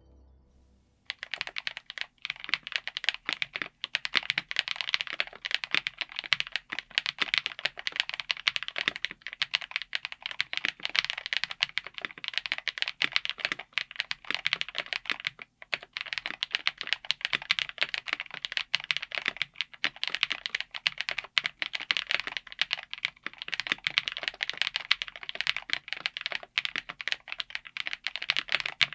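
Mechanical keyboard with Akko Creamy Yellow U1 linear switches being typed on steadily, a dense run of keystrokes starting about a second in, with a brief pause about halfway through.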